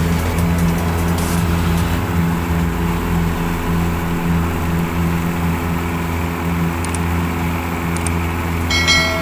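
Yamaha 100 hp outboard motor running steadily at speed, pushing the boat through the water. Near the end come two soft clicks and a short chime.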